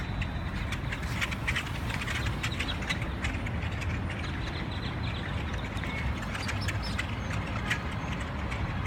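A large flock of birds calling together, with many short overlapping chirps and clicks over a steady low traffic rumble.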